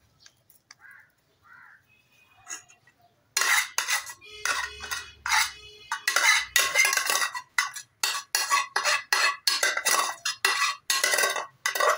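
Metal spoon scraping and clanking against an aluminium saucepan while boiled rice is scooped out, starting about three seconds in as a fast run of sharp metallic knocks with a ringing tone.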